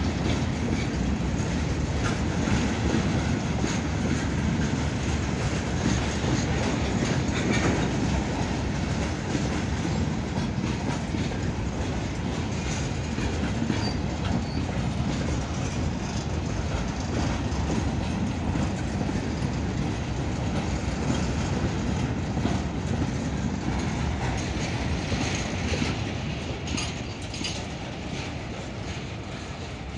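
Freight train of covered goods wagons rolling past: a steady rumble of steel wheels on rail with a stream of clicks and clacks over the rail joints, getting quieter over the last few seconds.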